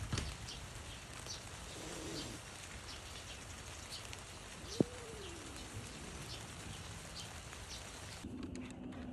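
A single low animal call that rises and then falls, lasting about a second, comes midway, with a sharp click just before it. Under it runs a light patter of faint ticks. Near the end the sound cuts to a steady low hum.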